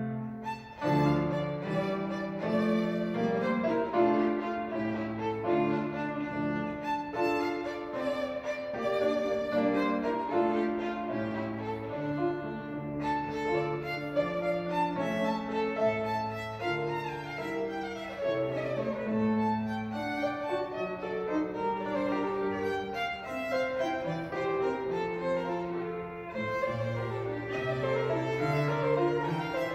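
Violin playing a melody with piano accompaniment, with a brief break in the phrase about half a second in.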